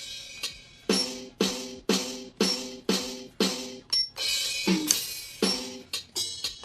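Electronic drum sounds from a roll-up electronic drum pad set's built-in speaker: a cymbal crash, then a steady beat of pitched drum hits about two a second, with another crash about four seconds in.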